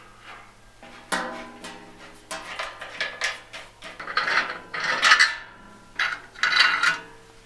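A hand tool scraping and prying at the worn, cracked rubber tire on a bandsaw wheel rim, which is due for replacement. Irregular scraping and rubbing strokes come in several bouts, the loudest about four to five seconds in and again near seven seconds.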